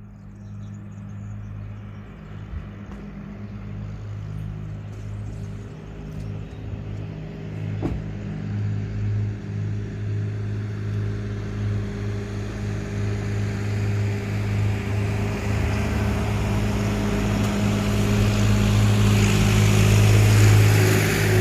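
A motor vehicle's engine running with a steady low hum, growing gradually louder and loudest near the end.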